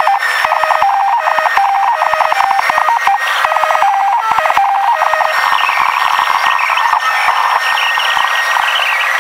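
Thin, high electronic tones stepping between two pitches in a repeating pattern, over hiss; about five seconds in the pattern gives way to a busier, denser jumble of tones.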